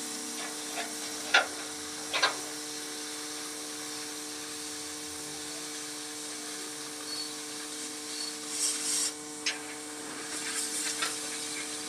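Oxy-fuel cutting torch hissing steadily as it burns through a thick steel plate, with a steady low hum underneath. A few sharp clicks and short crackles come through, around a second and a half and two seconds in, and a brief burst of hiss about nine seconds in.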